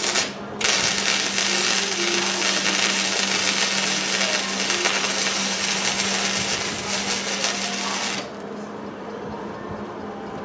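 Hobart Handler 140 wire-feed welder's arc crackling and hissing: a short tack at the start, then a continuous bead of about seven seconds that stops abruptly, repairing a broken weld on a Kubota L3901 tractor.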